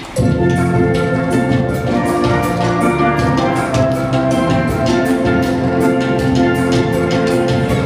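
Live steel pan playing a melody over a drum kit with cymbals, the band coming in all at once just after the start.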